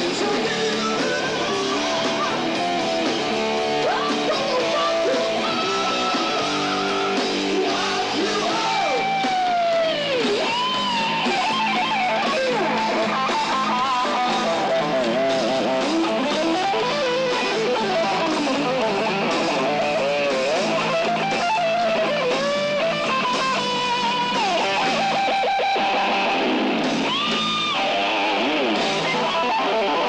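Live rock band playing: electric guitar over a drum kit. From about nine seconds in, a lead line of sliding, bent notes runs over the top.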